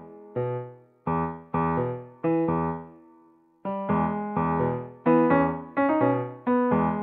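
Background music: a piano-like keyboard playing a gentle melody in chords, each note struck and left to fade, with a brief lull about halfway through.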